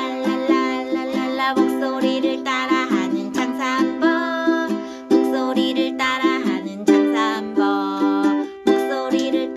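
Background music: a cheerful song in a stretch without lyrics, with quick repeated plucked-string notes under a melody line.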